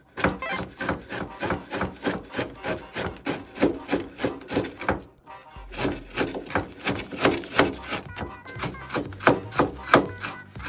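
Chef's knife julienning carrots on a plastic cutting board: a fast, even run of chops, about four a second, with a short pause about five seconds in.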